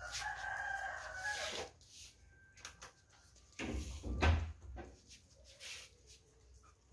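A rooster crows once, a drawn-out call of about a second and a half. Loud, close knocking and rustling follows around the middle, the loudest sound.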